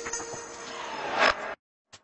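Background electronic music tailing off: its beat gone, a hiss sweeps upward and stops suddenly, followed by a brief gap of silence.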